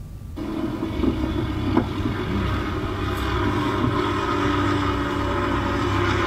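Soundtrack of a news clip of lava pouring into the sea, played over loudspeakers: intense, scary music with sustained droning tones over a low rumble. It cuts in suddenly just after the start.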